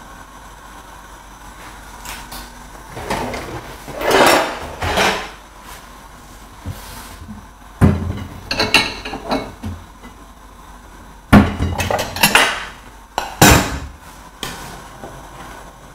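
Kitchenware being handled, with dishes clattering as a cupboard is opened and a ceramic bowl is taken out and set down. There are a couple of longer scrapes and then a handful of sharp knocks in the second half.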